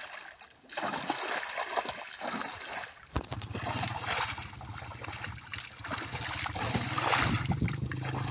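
Muddy canal water splashing and sloshing as a long stick is swept and churned through it by someone wading. From about three seconds in, a steady low hum runs beneath the splashing.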